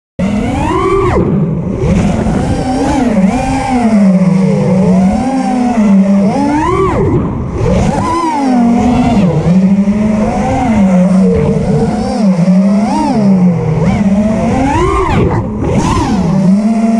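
FPV quadcopter's brushless motors and propellers whining, the pitch rising and falling constantly with the throttle. It starts abruptly at the beginning.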